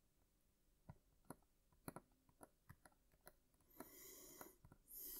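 Near silence, with a few faint, scattered ticks of a soldering iron tip against the pins of a fine-pitch surface-mount chip on a circuit board, and a soft hiss near the end.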